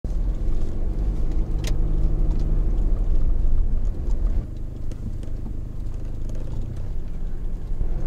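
Car running along a paved road, heard from inside the cabin: a steady low engine and tyre rumble, with a sharp click about one and a half seconds in.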